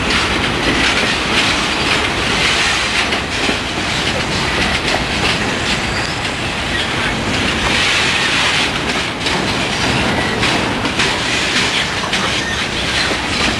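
Freight train of boxcars rolling past at close range: a steady rumble and rattle of steel wheels on rail, with repeated clickety-clack of wheels crossing rail joints.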